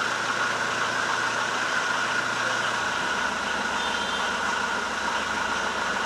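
Engine of a 1953 Hindustan 14 car running steadily, under an even hiss; the low rumble fills in about three seconds in.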